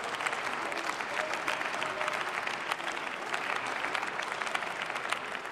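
Members of parliament applauding: a steady patter of many hands clapping that holds at an even level throughout.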